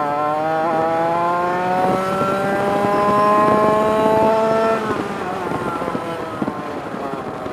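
Hewland Arrow 100cc two-stroke kart engine pulling, its note rising steadily for about five seconds, then breaking up and dropping to a rougher, uneven sound. The engine is four-stroking, firing only every other revolution, as a two-stroke does when the mixture is rich.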